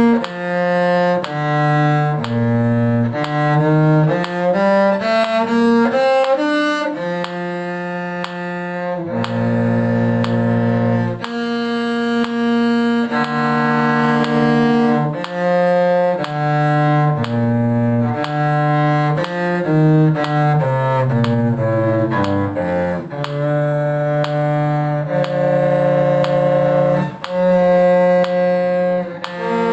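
Two bowed string parts, cello-range, playing a duet together. They sustain notes of about a second each, with quick scale-like runs about five seconds in and again around twenty seconds in.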